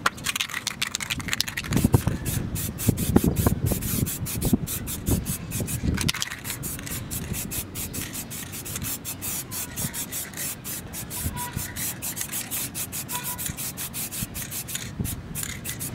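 Aerosol spray paint can hissing in many short, rapid bursts as it is sprayed. Some low knocks and rustling in the first six seconds.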